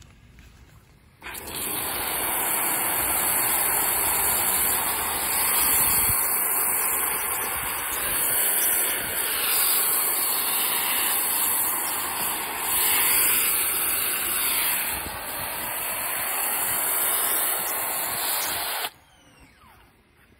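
Pressure washer spraying through a foam cannon: a steady, loud hiss of spray that starts abruptly about a second in and cuts off abruptly near the end.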